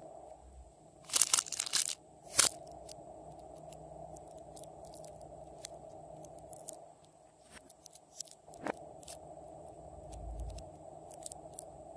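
Small plastic slime charms and toppings being handled by hand: a dense crackling burst about a second in, a sharp click just after, then scattered light clicks and taps over a steady faint hum.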